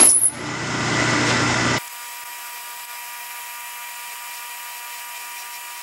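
Metal lathe drilling a spinning bronze workpiece with a drill bit fed from the tailstock chuck: a loud, noisy cutting sound for just under two seconds, then an abrupt drop to a quieter steady whine with a fixed tone.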